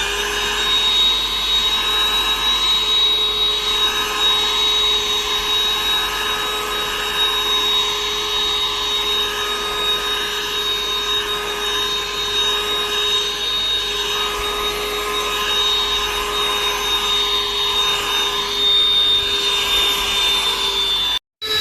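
Cordless handheld vacuum cleaner running steadily, its small motor giving a constant high whine over the rush of air. The sound cuts off abruptly near the end.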